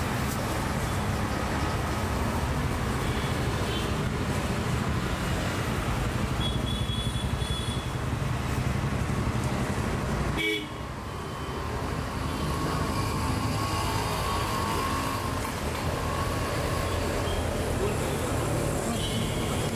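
Steady roadside traffic rumble with vehicle horns tooting briefly now and then.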